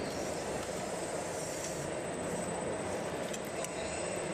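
Radio-controlled model Cat 374 F L excavator driving on its tracks along a low-loader trailer deck, its drive motors and tracks running steadily over a background of hall noise.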